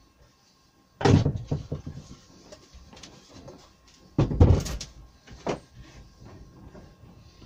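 Wooden knocks and scraping as a curved timber brace is lifted and set back against the bracket's rail on a workbench: two loud knocks, about a second in and about four seconds in, each followed by a short clatter, with lighter taps between.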